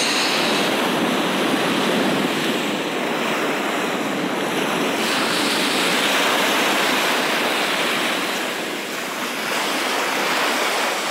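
Gulf surf washing over shallow water at the beach: a steady rush of small waves that eases slightly for a moment near the end.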